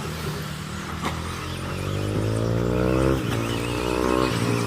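1/10-scale off-road RC racing cars accelerating, their motor whine rising in pitch. It drops sharply about three seconds in, climbs again and falls off near the end, over a steady low hum.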